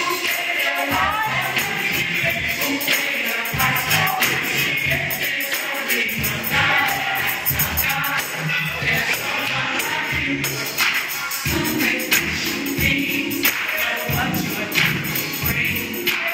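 Recorded gospel music: a choir singing over a steady, driving beat with a tambourine jingling along.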